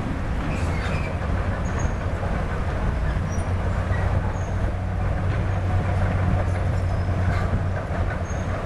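Heavy diesel construction machinery running with a steady low drone, with faint scattered clicks and squeaks over it.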